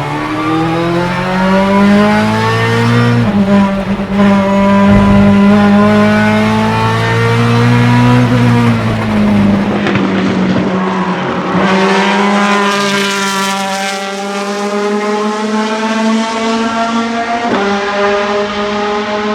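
Ferrari F430 GTC/GT2 racing car's 4.0-litre naturally aspirated V8 running hard on track. Its pitch climbs and falls through the gears, with sharp jumps at the shifts about three seconds in and near the end.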